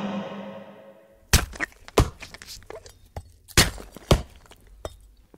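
Sword-fight sound effects: a series of sharp thuds and cracks of blows, the loudest coming in two pairs, after background music fades out in the first second.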